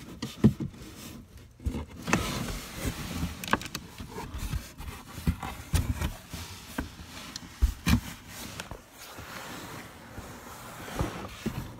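Cardboard box flaps being pulled shut from inside the box, with scattered rustles, scrapes and soft knocks against the cardboard.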